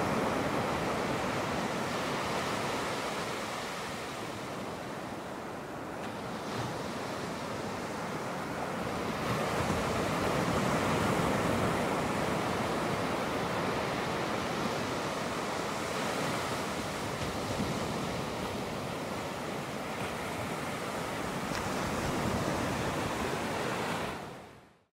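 Ocean surf: waves washing in a steady rush that swells and eases over several seconds, fading out just before the end.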